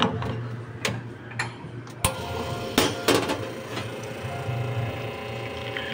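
Espresso machine: a few sharp metal clanks and clicks in the first three seconds, the loudest at the start, as the portafilter is locked into the group head and the shot is started, then the pump hums steadily while the espresso pours.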